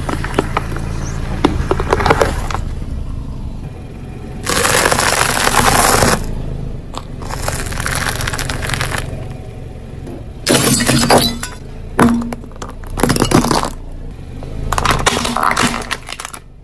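A car tyre slowly rolling over and crushing a succession of objects, including a watermelon, with bursts of crunching, cracking and breaking. There is one long burst about five seconds in and several shorter ones through the second half.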